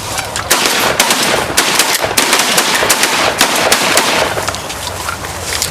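Shotguns firing a fast, overlapping volley of many shots at incoming geese, starting about half a second in and easing off after about four seconds.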